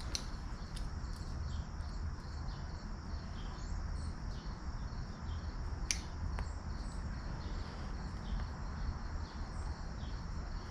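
Steady high-pitched insect chirping over a low rumble, with a few sharp clicks; the loudest click comes about six seconds in.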